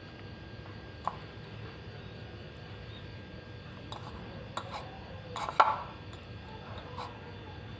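A few light clicks and taps of kitchen utensils on a dish while homemade fried noodles are shaped into a ring, loudest in a short cluster about five and a half seconds in, over a steady low hum.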